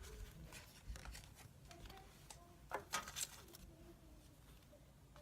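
Faint rustling and a few soft clicks of a trading card being slid into a plastic card sleeve.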